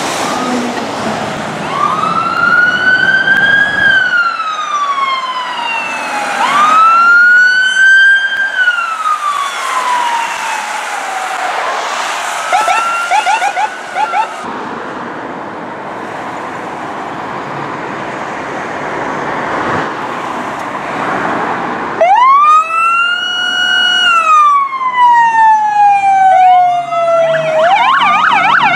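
Emergency vehicle sirens wailing, each a slow rise and fall of pitch over a few seconds, with short bursts of fast warbling in between. A quieter stretch without a siren comes midway, then a loud wail starts and switches to a fast yelp near the end.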